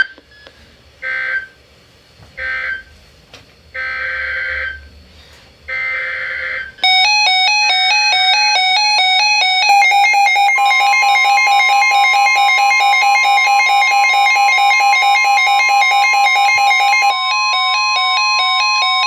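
Emergency Alert System digital data bursts: four short raspy bursts of the SAME code. They are followed by an electronic alert chime that alternates rapidly between pitches, and about ten seconds in, a steady single-pitch weather-radio warning alarm tone joins it and sounds with the chime. Together they signal the start of a new severe-weather warning.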